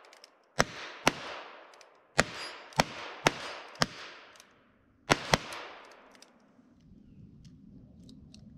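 Ruger Wrangler .22 single-action revolvers fired by several shooters at once: about eight sharp cracks in uneven succession, some in quick pairs, each trailing off in a short echo. The last pair comes about five seconds in.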